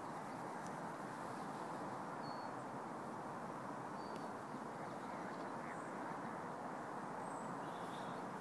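Steady background rumble with a few faint, short calls from water birds scattered through.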